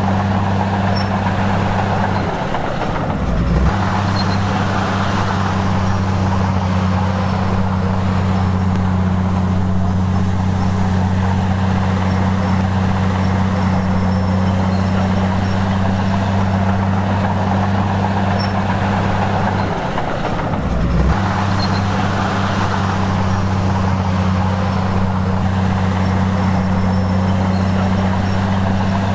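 Komatsu bulldozer's diesel engine running steadily under work, briefly sagging in pitch and recovering twice, about three seconds in and again about twenty seconds in.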